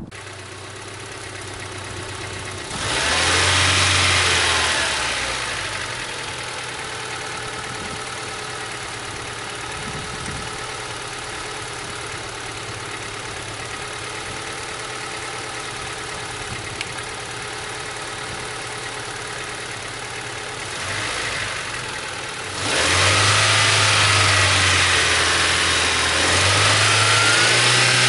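1991 Ford Festiva's small four-cylinder engine running with its cooling system freshly refilled, warming up to circulate the coolant and purge air pockets. It is revved briefly about three seconds in, settles to a steady idle, then is held at a higher speed for the last few seconds, stepping up once more near the end.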